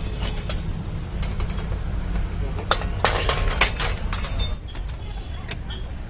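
Metal hand tools and parts clinking and tapping on a motorcycle being dismantled, with a busier run of sharp ringing clinks about three seconds in, over a steady low rumble.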